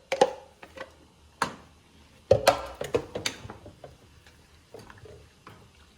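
A few sharp knocks and clinks of a utensil against a cooking pot. The loudest come in a cluster about two and a half seconds in, followed by fainter ticks.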